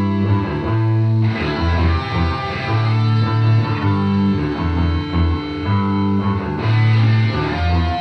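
Instrumental rock music led by distorted electric guitar over low bass notes.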